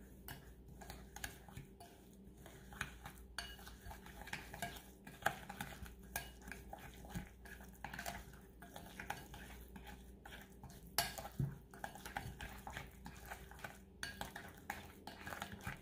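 Metal utensil stirring a damp spice rub in a glass mixing bowl: a faint, irregular run of scrapes and light clinks against the glass.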